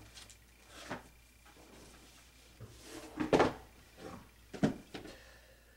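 A few knocks and thumps of books being handled and put away. The loudest thump comes just after three seconds in, with two smaller knocks about a second later.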